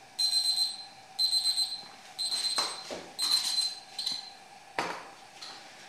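Salter digital kitchen timer beeping at the end of its countdown, signalling that the bread's baking time is up. Its high beeps come in short bursts about once a second, five times, then stop. A sharp knock follows near the end.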